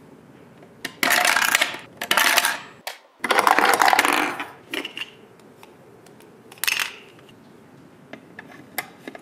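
Small toy drink cans clattering out of a plastic toy vending machine and rolling across a hard floor, in several bursts of rattling, with a few light plastic clicks and taps later on.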